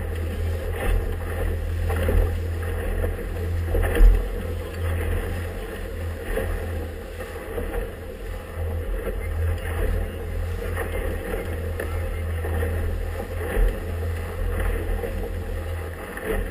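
An inflatable motorboat running through choppy water: a steady low engine rumble with the hull knocking against the waves, one harder slam about four seconds in.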